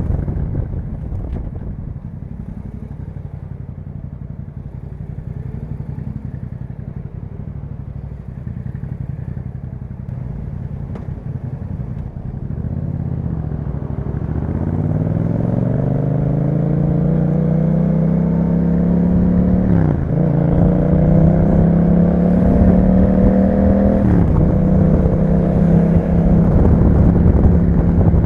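2021 Yamaha MT-07's parallel-twin engine through an Akrapovic exhaust, running low and steady at first. About halfway through it accelerates, its note rising and growing louder, with two quick upshifts near the end.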